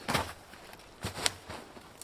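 Dry twigs and forest-floor debris crunching and snapping in a few short bursts: one right at the start, a louder one about a second in ending in a sharp crack, and a smaller one shortly after.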